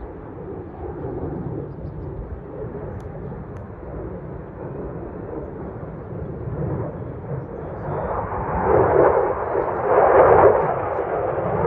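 F-16 fighter jet's engine rumbling as it flies a demonstration pass, growing louder about eight seconds in as the jet turns toward the listener.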